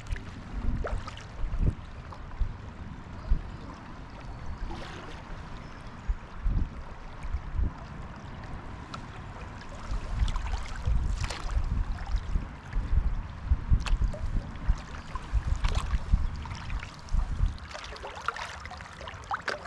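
Kayak on a moving river: irregular paddle splashes and water gurgling around the boat, over a gusting low rumble of wind on the microphone.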